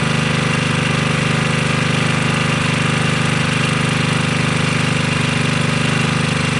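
Small engine running steadily on a Pantone-style GEET fuel processor, with fast, even firing pulses.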